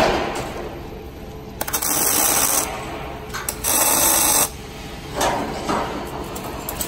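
Hand-held plasma cutter firing in two bursts of about a second each, a hissing buzz as it cuts the oval access-door opening in a steel light pole.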